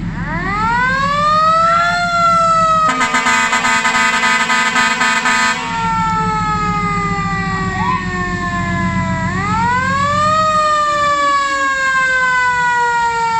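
A dump truck's siren winds up in pitch and then slowly winds down, twice, with a blast of multi-tone air horns about three seconds in lasting two to three seconds. The truck's diesel engine runs underneath with a steady low hum.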